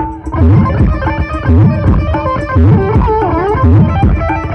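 Loud music played through a large outdoor sound system's speaker stacks during a sound check: a heavy bass beat about once a second under hand-drum and guitar-like melody.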